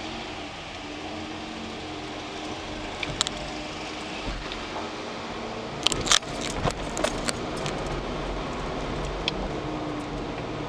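Van interior driving noise: engine and tyres running steadily with a low hum, broken by a couple of clicks about three seconds in and a cluster of sharp knocks and rattles about six seconds in as the van jolts over the ramp coming off the ferry.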